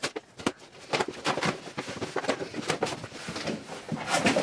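A cardboard shipping box and its packaging being opened by hand: an irregular run of crackling and rustling with small clicks and scrapes.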